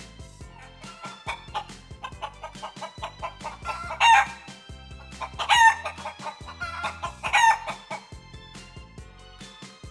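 Rooster sound effect over light background music: clucking calls from about a second in, building to three loud, short calls about a second and a half apart in the middle.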